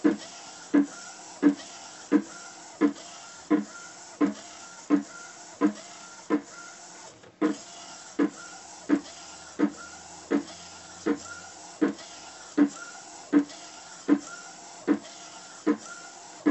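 Direct-to-garment inkjet printer printing on a white T-shirt: the print-head carriage runs back and forth with a steady whir and a short, regular knock about every 0.7 seconds.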